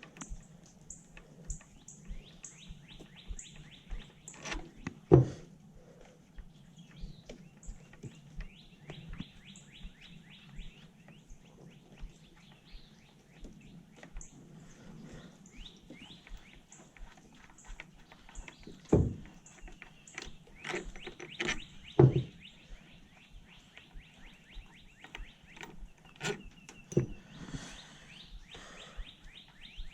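A socket ratchet clicking in quick runs as the bolts of an outboard lower unit's water-pump housing are backed out, with a few sharp knocks of tools against the metal housing.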